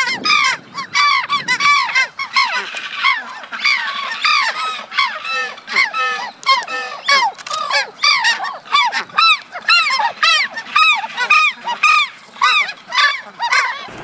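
A flock of subantarctic skuas calling: many short calls overlapping, several a second, each note rising and then falling in pitch.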